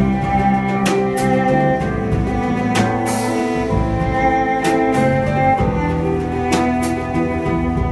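A live instrumental ensemble playing: sustained cello lines over hang (handpan) notes and guitar, with scattered drum and cymbal hits.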